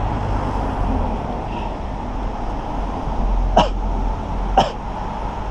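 Outdoor street ambience with a steady low rumble. About three and a half seconds in come two short, sharp sounds about a second apart, each dropping quickly in pitch.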